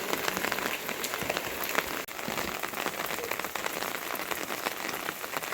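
Steady rain falling, a continuous hiss dotted with many sharp individual drop ticks, briefly dipping about two seconds in.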